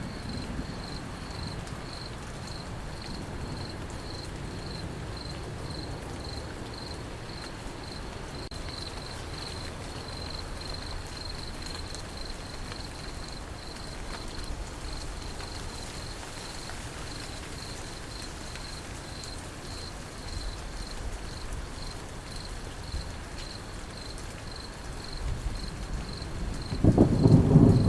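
Crickets chirping in a steady, even rhythm over a constant patter of rain. About a second before the end, a loud, low rumble of thunder rolls in.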